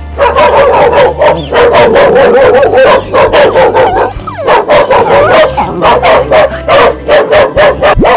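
A dog whining in quick, high, wavering cries, about four or five a second, with a brief pause about four seconds in.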